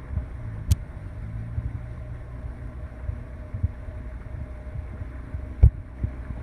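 Steady low rumble of the following boat's outboard motor running, with two short sharp knocks, one about a second in and a louder one near the end.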